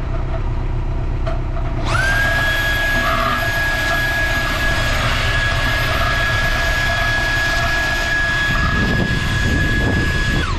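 A high-pitched rotary tyre-buffing tool spins up about two seconds in, runs at a steady whine, and winds down near the end, working the inside of the tyre around the puncture. A steady low engine rumble runs underneath.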